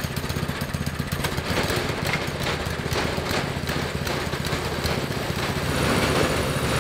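Small single-cylinder Tillotson 212 four-stroke engines on a three-engine mini bike running steadily, getting a little louder near the end.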